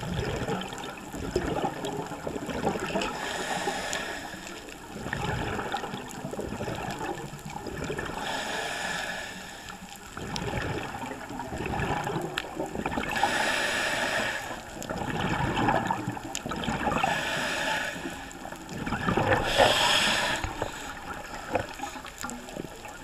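Scuba diver breathing through a regulator underwater, with a rush of exhaled bubbles every few seconds.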